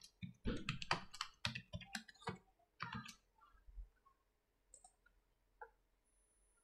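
Computer keyboard keys clicking as a password is typed: a quick run of about a dozen keystrokes over the first three seconds, then a few scattered single clicks.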